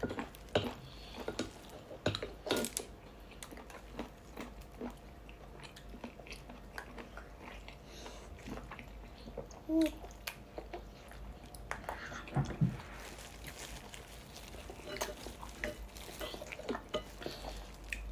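Chewing and eating sounds of sinigang pork being eaten: irregular wet smacks and small clicks throughout.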